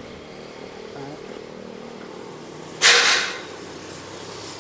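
Steady outdoor traffic din with a faint held hum. About three seconds in comes a sudden loud hiss lasting about half a second.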